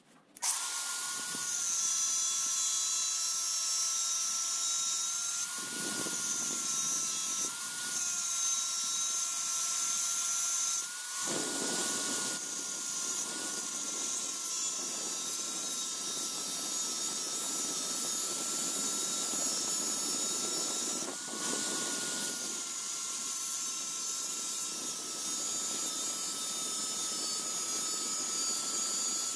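Angle grinder starting up and running with a steady high whine, its abrasive disc grinding into a steel spade drill bit held in a vise. Several stretches of louder, harsher grinding come where the disc bites harder into the metal.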